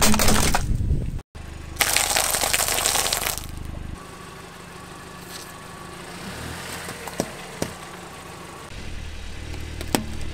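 A car tyre slowly rolling onto and crushing objects on asphalt. First a plastic toy car cracks and crunches under the tyre. After a short break there is a loud dense crunch, then a quieter stretch as the tyre presses on lemons, with two sharp pops. Louder crunching returns near the end as the tyre reaches plastic cups of jelly.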